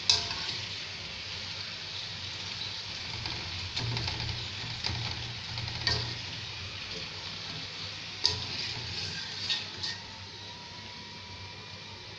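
Fuchka puris deep-frying in hot oil in a wok, a steady sizzling hiss. A few sharp clicks come over it, most likely the wire-mesh skimmer knocking the pan: one right at the start, which is the loudest, and several between about eight and ten seconds in.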